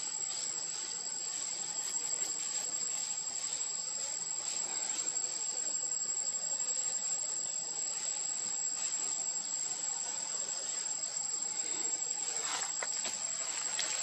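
Insects in the trees shrilling steadily: a continuous high-pitched whine with a second, lower buzzing band beneath it. A few faint clicks come near the end.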